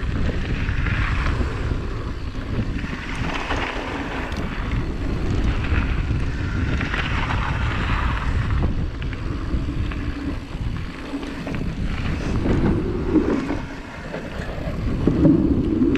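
Wind rushing over an action camera's microphone and a YT Capra Uncaged 9 mountain bike's tyres rolling fast over a dirt downhill trail, a steady rumble with gusts of hiss. Near the end the rolling sound briefly changes as the tyres cross wooden planks.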